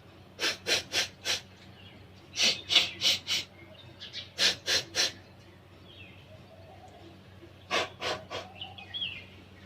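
Short, sharp blasts of breath forced out through the nose, in four quick runs of three or four, clearing leftover water from the nostrils after a neti pot rinse (jal neti). Faint bird chirps between the runs.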